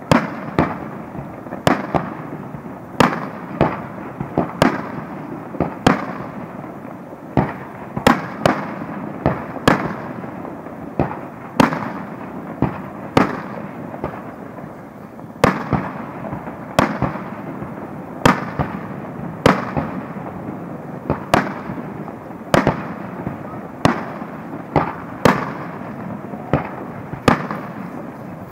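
Aerial fireworks display: shells bursting with sharp bangs, one or two a second at irregular spacing, over a continuous noisy background between them.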